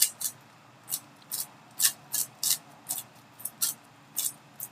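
3x3 speedcube being turned by hand: a string of short, sharp plastic clicks and rasps, about two or three a second, as the layers are twisted.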